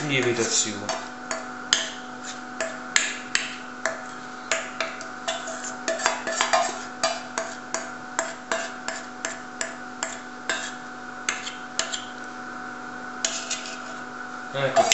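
A run of light, sharp knocks and clicks, irregular at roughly two a second, over a steady electrical hum.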